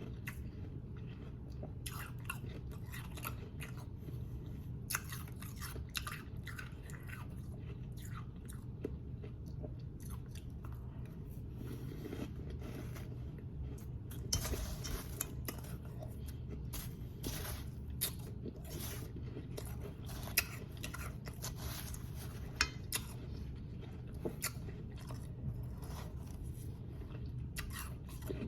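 Close-miked chewing and crunching of powdery, snow-like ice: many short crisp crunches, densest about halfway through.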